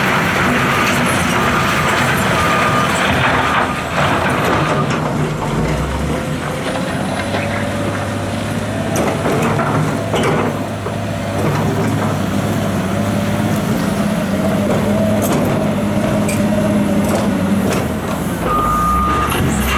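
Heavy diesel engines of the excavator and truck running steadily, with a reverse alarm beeping in an even on-off pattern at the start and again near the end. A couple of short bursts of noise come around four and ten seconds in.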